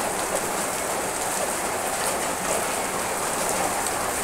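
Free-range chicken pieces sizzling in a wire grill over hot charcoal: a steady hiss with small crackles, the meat already charring and smoking.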